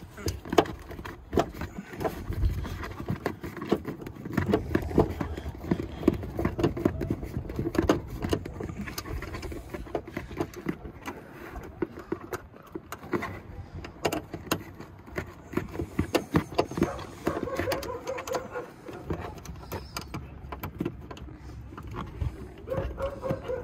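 Screwdriver working out a plastic retaining clip on a Lexus IS300's rear bumper: irregular clicks, taps and scrapes of metal on plastic, with the bumper cover knocking as it is worked loose.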